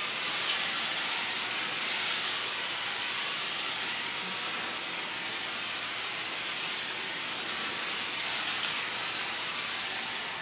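Steam cleaner hissing steadily as hot steam streams from its towel-wrapped upholstery brush, which is drawn slowly over a mattress to heat-treat it for bed bugs.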